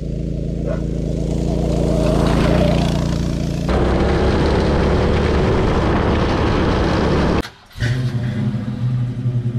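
A Predator 212 single-cylinder engine on a go-kart running, climbing a little in pitch partway through. After a cut it is heard at speed with rushing wind and road noise. After a brief drop near the end, a different steady drone follows.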